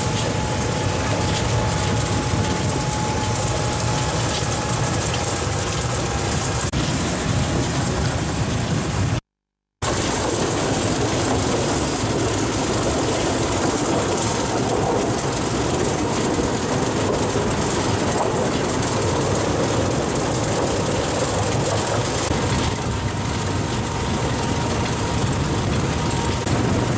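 Small former sugar-cane train running along its track: steady engine and wheel-on-rail noise heard from on board. It cuts out for about half a second roughly nine seconds in.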